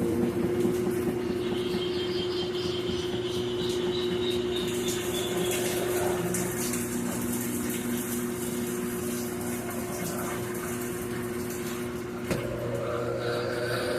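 Brastemp Ative BWL11 washing machine in its spin cycle, a load of coloured clothes spinning: a steady motor hum. About twelve seconds in there is a small knock, and a slowly rising tone comes in on top.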